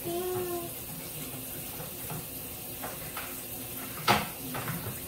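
Kitchen tap running into a stainless steel sink as dishes are rinsed, with a sharp clatter of a dish about four seconds in.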